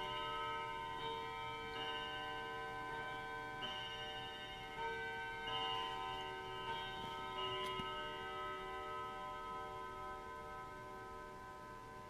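Bell-like chime tones struck one at a time at irregular intervals, each ringing on and slowly fading so that several overlap.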